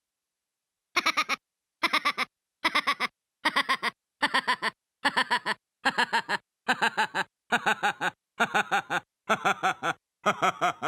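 Yamaha YPT-300 Portatone keyboard playing one built-in sound effect over and over, a short call with a wavering pitch repeated about once every 0.8 seconds, thirteen times in all. The first call comes about a second in.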